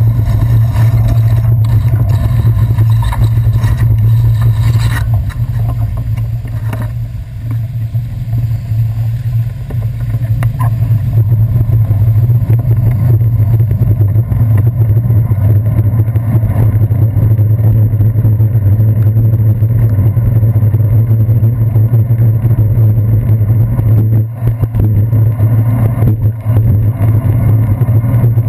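Steady low rumble of a bicycle riding over wet city streets, heard through a handlebar-mounted GoPro Hero 2 in its waterproof housing, which muffles the sound and passes on road vibration. A few sharp knocks come from bumps, and the rumble eases for a few seconds about six seconds in.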